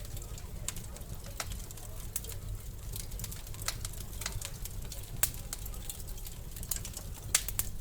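Wood fire in a fireplace crackling, with irregular sharp pops and snaps, several a second, over a low steady rumble. A louder pop comes about five seconds in and another near the end.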